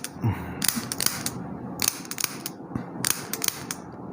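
Chiropractic adjusting gun (osteopathic adjuster gun) firing a rapid series of sharp clicks in irregular clusters, applied to the neck to release a tight scalene muscle.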